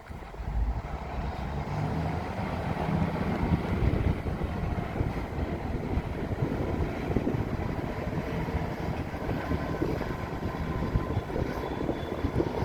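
Underfloor diesel engines of a British Rail Class 165 diesel multiple unit running with a steady low rumble.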